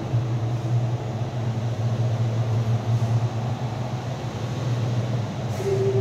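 Electronic drone from an interactive sound installation's loudspeakers: a steady low hum under a grainy noise texture, joined near the end by a higher held tone.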